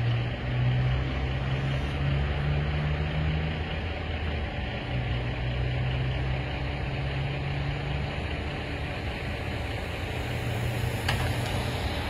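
A vehicle engine idling: a steady low hum that drifts slightly in pitch, over a constant hiss.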